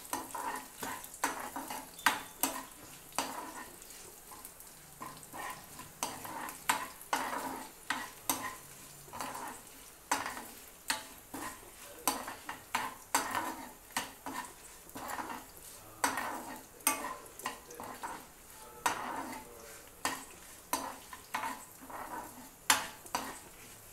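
Metal spoon stirring a tempering of dried red chillies, garlic, curry leaves and lentils frying in oil in a nonstick pan: irregular scrapes and light taps of the spoon against the pan, about once or twice a second, over a soft sizzle.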